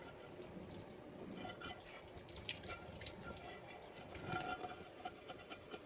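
Faint water sounds: small drips and splashes with scattered light clicks, as in kitchen work at a sink or pot.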